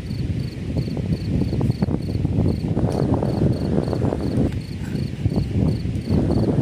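Strong wind gusting and buffeting, a rough, crackling low rumble. Over it an insect, likely a cricket, chirps in short high-pitched pulses at about three a second.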